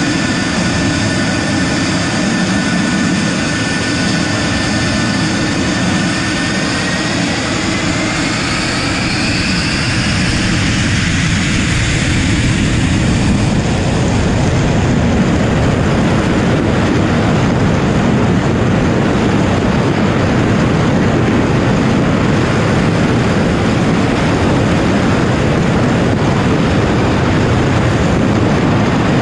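Tu-160 bomber's four NK-32 afterburning turbofans heard from the aircraft's tail: a steady turbine whine rises in pitch from about six seconds in as the engines spool up to takeoff power. It gives way to a louder, even rushing noise that holds for the rest of the takeoff run.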